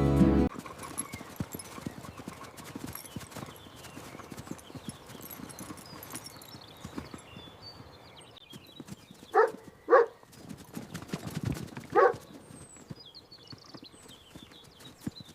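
Horse's hooves clip-clopping as the horse walks slowly with careful steps, followed by three short calls from the horse, two close together and one a couple of seconds later.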